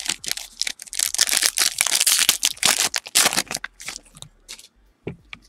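A trading card pack's foil wrapper being torn open and crinkled, with dense crackling for about three and a half seconds, then a few scattered clicks as the cards are handled.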